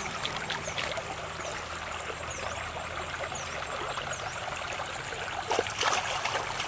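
Shallow rocky stream flowing and babbling steadily, with a hand splashing in the water near the start. A short louder patch of noise comes near the end.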